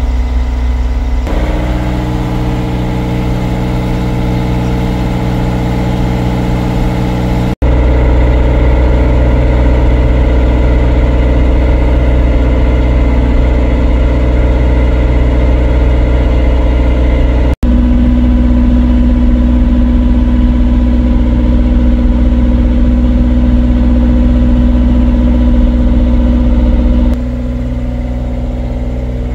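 Motorboat engine running steadily, a low, even drone heard from on board. It jumps abruptly in tone and loudness a few times.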